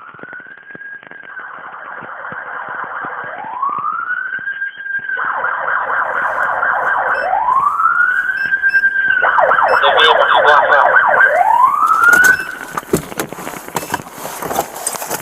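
Police car siren, alternating a slow rising wail with a fast yelp, getting steadily louder as it approaches, then cutting off abruptly about three-quarters of the way through. A jumble of clicks and rattles follows.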